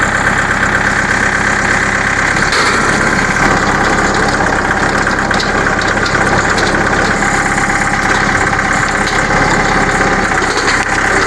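Mahindra diesel tractor engine running steadily.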